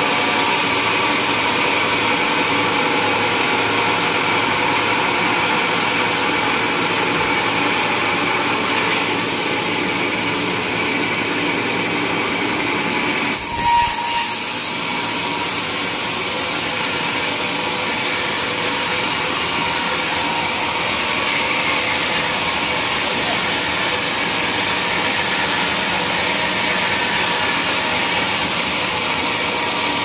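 Band sawmill running and cutting lengthwise through a large log, a steady sawing noise, with a brief louder moment about halfway through.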